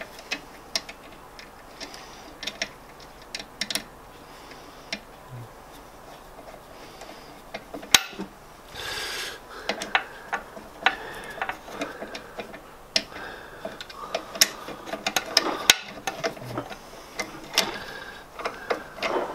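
Irregular small metallic clicks and taps of a screw being put back in and hand tools and parts handled at the lathe's motor mount.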